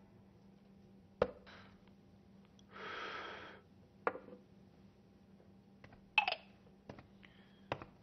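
Liquid poured from a wicker-cased thermos flask into a porcelain cup, a hiss of a little under a second, amid sharp knocks and clinks of the flask and cup being picked up and set down, then a few light footsteps near the end.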